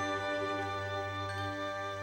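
Soft background music of steady, held chords over a low sustained hum.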